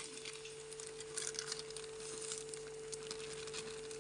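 Maida (refined wheat flour) pouring into a glass bowl, a faint soft patter and rustle with small ticks, over a steady hum.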